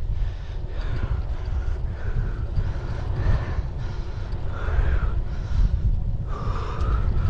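Wind rumbling on the microphone of a moving bicycle, with the rider's breathing heard in short, repeated puffs.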